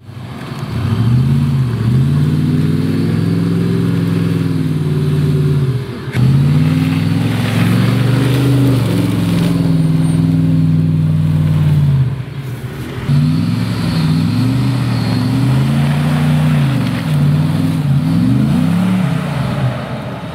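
Jeep Grand Cherokee's 4.7-litre V8 revving in repeated surges under load in deep mud, its pitch rising and falling over and over, with brief drops around six and twelve seconds in.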